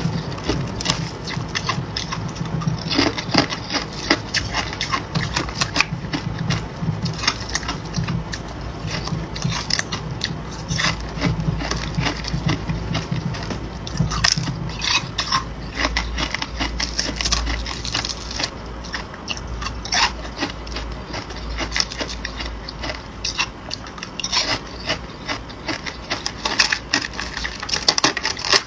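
Hard ice being bitten and chewed close to the microphone: a dense, irregular run of sharp cracks and crunches.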